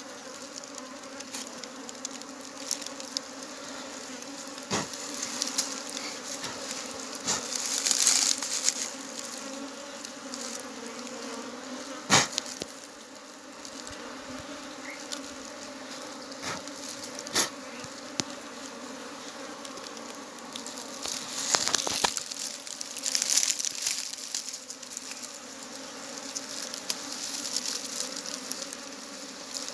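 Swarm of honeybees buzzing around an opened wild honeycomb in a rock crevice, a steady hum. Scattered clicks and rustles of handling over it, louder about eight seconds in and again in the last third.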